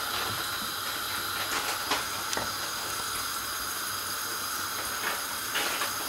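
Flour-coated chicken pieces deep-frying in hot oil in a frying pan: a steady sizzle, with a few faint pops about two seconds in.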